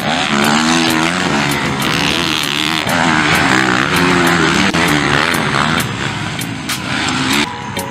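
Motocross bike engines revving hard, their pitch rising and falling again and again as the riders take the jumps. The engine sound drops away about seven and a half seconds in.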